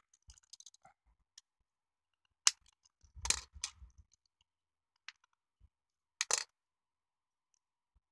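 Plastic body shell of an N-gauge 115 series model train car handled and worked apart by hand: a sharp click about two and a half seconds in, a short cluster of knocks and taps a second later, another click near five seconds, and a quick double click past six seconds.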